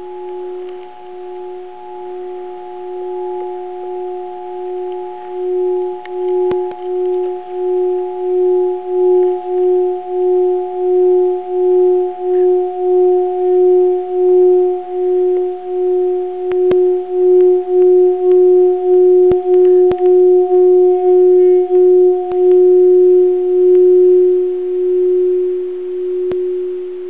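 Tibetan singing bowl rubbed around its rim with a mallet, singing one steady low tone with fainter higher overtones and a wavering pulse. The tone swells louder over the first twenty seconds or so and eases slightly near the end, with a few faint ticks of the mallet against the rim.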